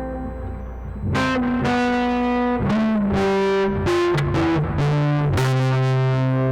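Electric guitar played through a phone app's distortion effect: a held chord fades, then a riff of struck chords and notes begins about a second in, ending on a chord left ringing.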